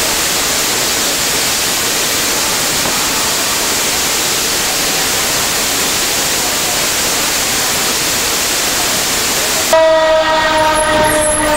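Water spraying hard out of a broken fire-sprinkler pipe: a loud, steady hiss. Near the end it cuts off abruptly to a fire engine's steady, horn-like pitched tone.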